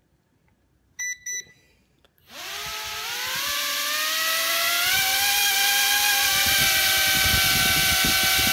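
Two short beeps about a second in, then the Holy Stone HS170 mini quadcopter's four motors and propellers spin up to a loud, steady high whine, stepping up in pitch about halfway, with a low flutter growing underneath. The drone stays down on the table because its front propellers are on in the wrong positions and push down instead of lifting.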